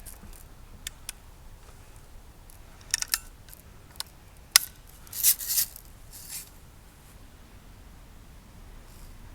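Daisy BB starter rifle being handled and fired: scattered mechanical clicks, a sharp snap about four and a half seconds in, then a brief rasping noise.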